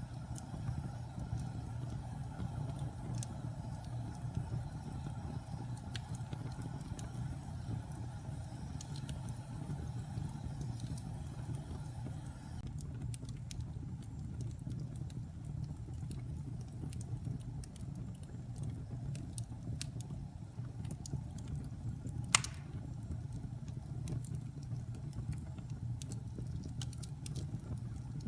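Fire burning in a fireplace: a steady low rumble of the flames with scattered small crackles, and one sharp, loud pop about twenty-two seconds in.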